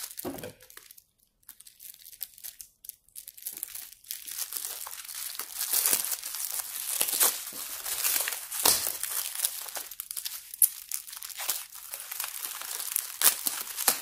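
Bubble wrap crinkling and crackling as it is cut with scissors and pulled off a bundle of wooden frame bars, with a few sharp snaps among it. Nearly quiet for the first few seconds, then busy handling noise.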